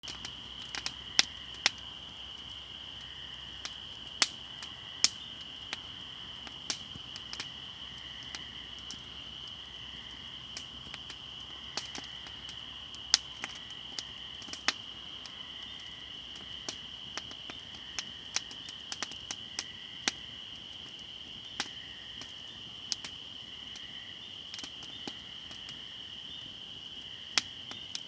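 A chorus of spring peepers keeping up a steady high peeping, with a fire crackling over it in irregular sharp pops, a few of them loud.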